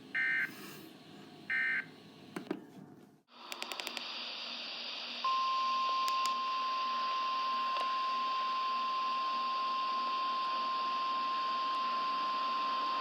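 Two short chirping data bursts of Emergency Alert System SAME coding, the end-of-message signal of the alert before. After a brief cut comes radio static hiss with a few clicks, and then, about five seconds in, the NOAA Weather Radio 1050 Hz warning alarm tone: one steady pitch held to the end.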